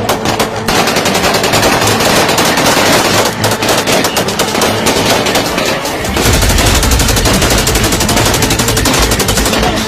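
Rapid, sustained automatic gunfire, many shots a second in long volleys. A heavy, steady low sound joins about six seconds in.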